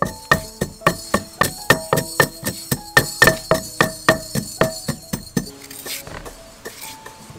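Background music with a quick, steady plucked or struck beat of about four notes a second. The beat stops about five and a half seconds in, leaving softer, sparser notes.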